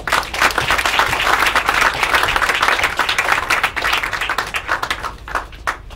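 Audience applauding a speaker's introduction: dense clapping that thins out to a few last claps near the end.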